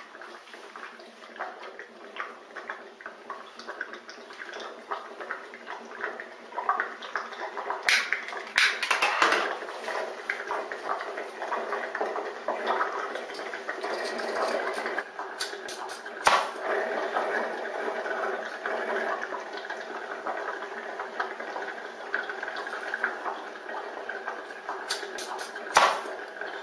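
Hydrogen from caustic soda reacting with aluminium foil in water, bubbling steadily through soapy water into foam, with several sharp clicks along the way. Near the end there is a short loud burst as the hydrogen-filled foam is lit.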